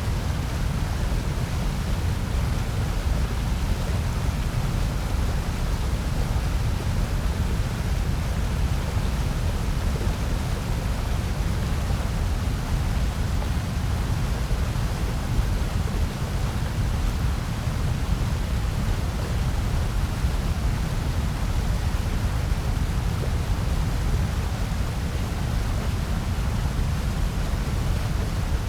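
Continuous synthetic white noise: an even, unchanging hiss with a deep rumbling weight in the low range under a softer, airier layer above.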